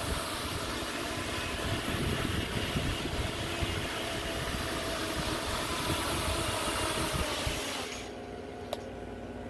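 A 7-inch FPV quadcopter's motors and propellers whine steadily as it hovers low. About eight seconds in the sound cuts off sharply as the drone lands and the motors stop. The motors are running normally after two days left out in the rain.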